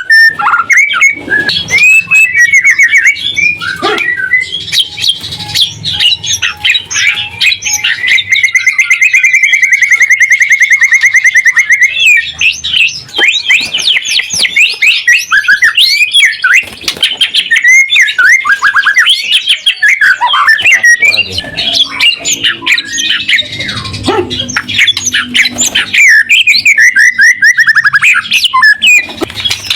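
White-rumped shama (murai batu) singing loudly and without pause: a fast, varied song of whistles, chattering notes and rapid trills, including a long fast trill from about nine to twelve seconds in.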